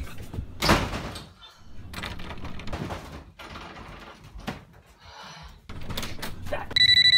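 A loud thump about a second in, followed by door-like bumps and rustling. Near the end a phone starts ringing with a loud, rapidly pulsing electronic ring.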